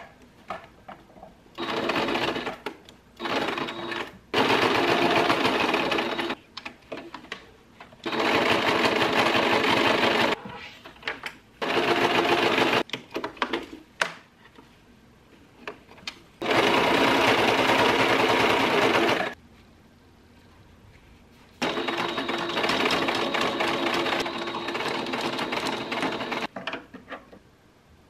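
Domestic electric sewing machine stitching fabric, running steadily in about seven separate runs of one to five seconds, stopping and starting again between them.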